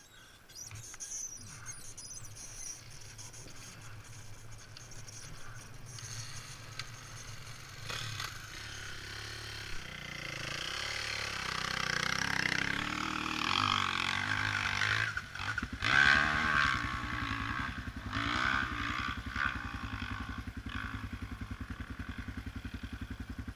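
Dirt bike engine revving hard and rising and falling as it rides off toward the hill, loudest about two-thirds of the way through. A nearby ATV engine idles with a steady low throb from then on.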